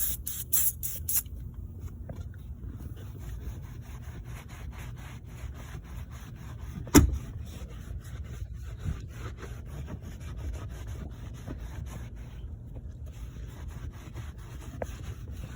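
A trigger spray bottle of glass cleaner squirted a few quick times, then a cloth wiping and scrubbing car interior surfaces in quick repeated strokes. There is one sharp knock about 7 seconds in.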